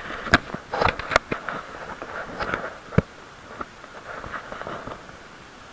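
Sharp clicks, knocks and scrapes from a hand-held action camera being handled as it is carried over rough rock, dense in the first second and a half, with one loud knock about three seconds in, over a steady background hiss.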